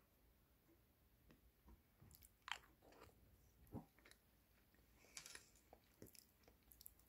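Quiet eating sounds: a wooden spoon scraping and tapping against a clear plastic dessert cup, with soft chewing and a few small clicks and knocks, the sharpest about two and a half seconds in.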